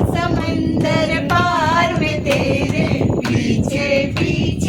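Voices singing a Hindi film song informally without accompaniment, in held, wavering phrases, with the higher voices leading.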